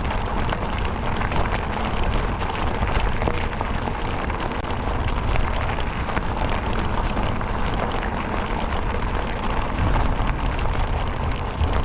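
Northrock XC00 fat bike being ridden along a trail: steady wind rush and rumble on the microphone with a continuous crackle from the stock Kenda Gigas tyres rolling over the ground.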